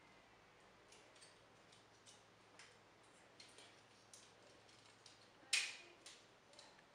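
Small plastic parts of a snap-together model-kit robot clicking and tapping as they are handled and pressed into place, with scattered faint clicks and one sharp, louder click about five and a half seconds in.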